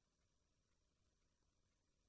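Near silence: only a faint steady electronic hiss.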